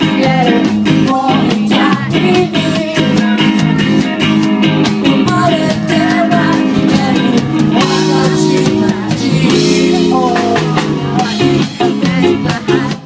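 Live band music: a bending melody line over guitars and a steady drum beat.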